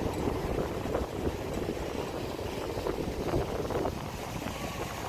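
Wind buffeting the microphone over the sound of ocean waves breaking and washing up the sand.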